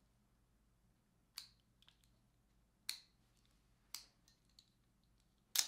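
Four sharp, short clicks roughly a second or so apart, the last one the loudest, in a quiet small room.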